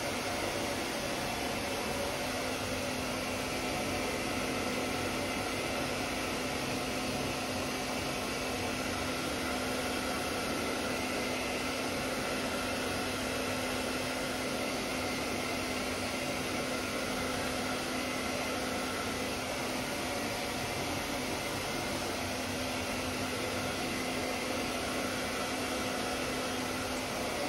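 Hand-held hair dryer blowing steadily, with a steady hum that comes in about two seconds in and drops out near the end.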